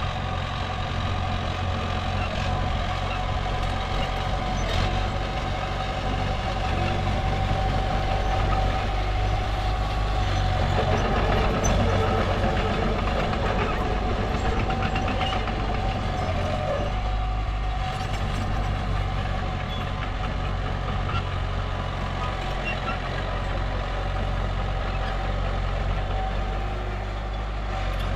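Komatsu mini bulldozer's diesel engine running steadily under working load, with a thin steady whine above the engine note; it swells slightly about halfway through.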